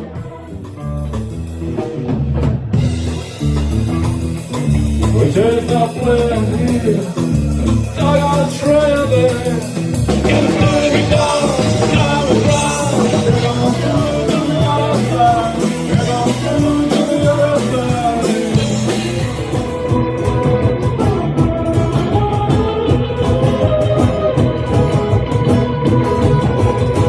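Rock-and-roll band music in a 1960s style: a singer over drum kit and guitar, fading up over the first few seconds, with the vocal dropping out after about two-thirds of the way and the band carrying on with steady strumming.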